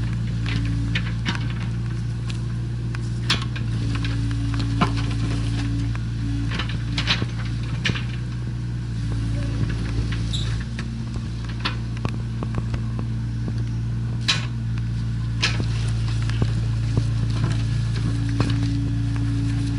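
Hydraulic excavator's diesel engine running steadily, with a higher hum coming and going as it works. Scattered sharp clanks and knocks, about a dozen, are heard over it, from the bucket scraping soil.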